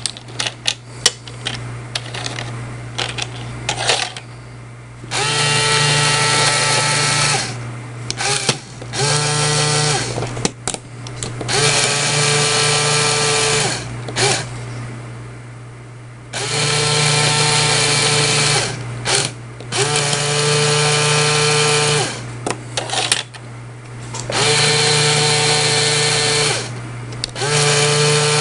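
A small LEGO electric motor driving a worm gear and large wheel whines steadily in repeated runs of about two seconds, switched on and off about seven times as the rammer chain pushes LEGO shells along. Before the first run come a few seconds of light plastic clicks and knocks as LEGO pieces are handled.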